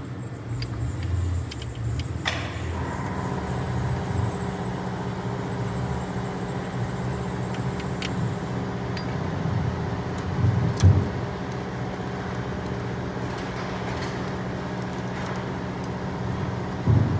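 A steady mechanical hum, like a motor or engine running, with a few scattered clicks and two short knocks, one about eleven seconds in and one near the end.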